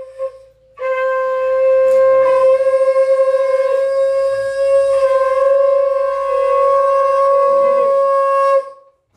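Conch shell (shankha) blown: a short blast at the start, then one long held note of about eight seconds with a slight waver, which stops sharply near the end.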